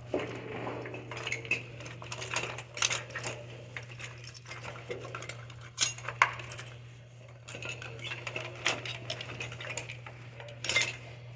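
Lock-picking tools working the pins of a doorknob lock: irregular small metallic clicks and rattles throughout, over a steady low hum.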